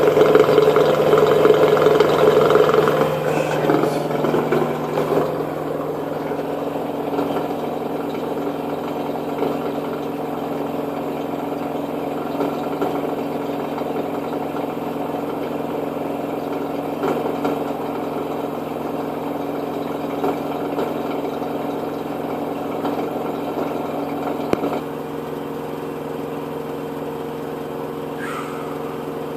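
Washing machine running on its spin cycle: a steady mechanical hum with a constant low drone. It is loudest for the first three seconds, then settles lower and drops again about 25 seconds in. This is the noise during spin that the owner cannot explain.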